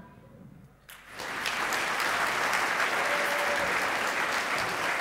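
Audience applauding, rising out of a brief hush about a second in and holding steady.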